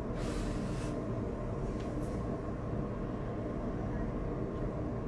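Steady low rumble of room noise in a small enclosed space, with a short hiss lasting under a second near the start and a fainter brief one about two seconds in.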